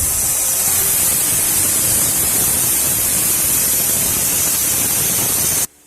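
A loud, steady hiss, strongest in the high range, that cuts off suddenly near the end.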